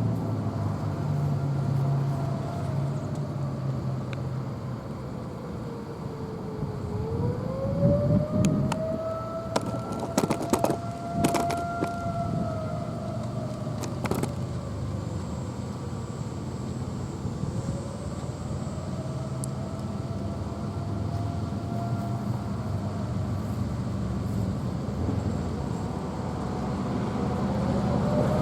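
Federal Signal mechanical outdoor warning siren sounding a single tone that rises and falls slowly in long wails. It sinks to its lowest pitch about seven seconds in, then climbs back and sags again. Several sharp clicks or knocks are heard in the middle, over a low rumble.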